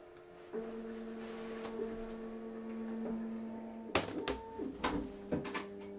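Bambu Lab X1 Carbon 3D printer's motors humming in two steady tones, which shift slightly lower in pitch about two-thirds of the way through. A few clicks and knocks come around then as the enclosure doors are shut.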